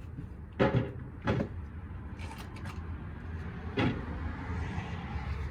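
Small mower engine running steadily, with three sharp knocks over it: two about a second in, half a second apart, and a third near the four-second mark.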